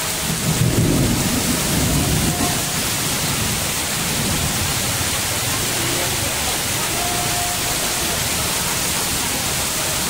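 Heavy rain pouring steadily onto a street, with a low rumble of thunder from about half a second to two and a half seconds in.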